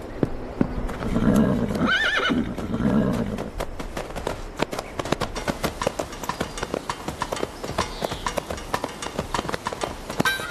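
A horse whinnies loudly from about one to three seconds in, followed by the fast, dense clatter of hooves at a gallop.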